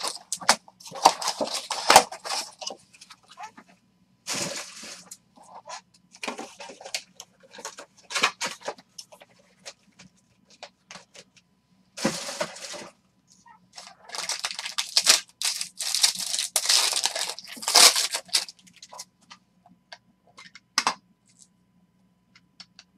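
Foil packs of 2019 Bowman Chrome baseball cards being torn open and crinkled, with the cards handled. The sound comes in irregular bursts of tearing and crackling with short pauses between.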